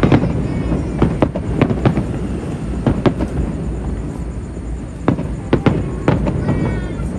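Fireworks going off in irregular loud bangs and pops, about a dozen over a few seconds.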